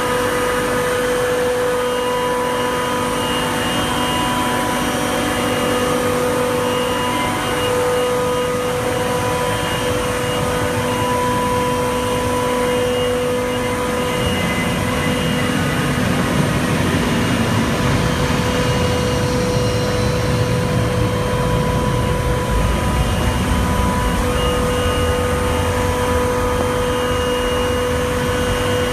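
Spiral freezer refrigeration plant machinery running: a dense mechanical hum with several steady tones, a heavier low rumble coming in about halfway through.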